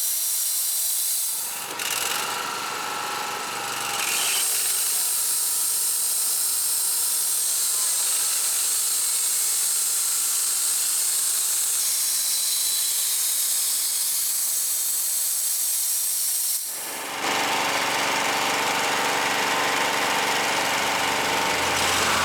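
Wood-Mizer LT35 band sawmill cutting a log: a steady high hiss from the blade, changing abruptly about two and four seconds in, and growing fuller and louder from about seventeen seconds.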